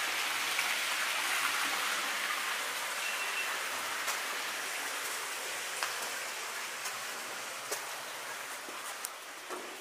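Rushing water of an underground river, a steady hiss that slowly fades, with a few sharp clicks in the second half.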